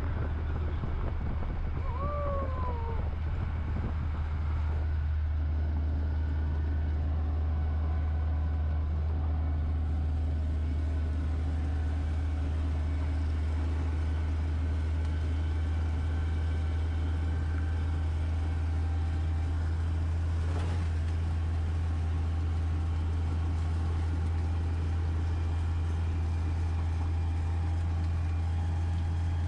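A vehicle's engine and road noise: a steady low drone that holds unchanged throughout, with faint steady tones above it.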